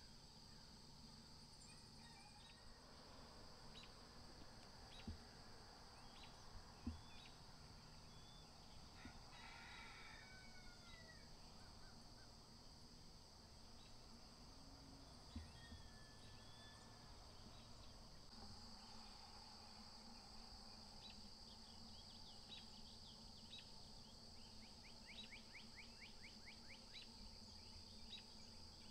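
Faint early-morning countryside ambience: a steady high-pitched chorus of crickets or other insects, with a few distant bird calls.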